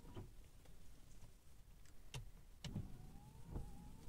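Windshield wiper motor of a Nissan Sentra B16 running on slow speed: a faint whine that rises in pitch during a sweep in the second half, with a few soft knocks.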